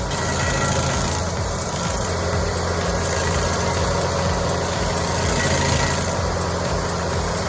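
A machine's engine running steadily at a constant speed, with a regular low throb.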